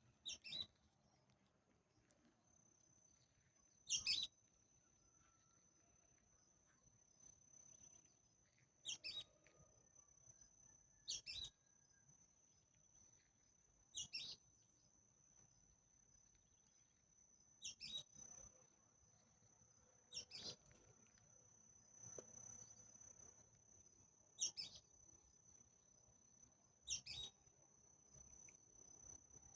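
A bird repeating a short, sharp, high call that drops in pitch, about every three seconds, over a steady, thin, high-pitched insect drone.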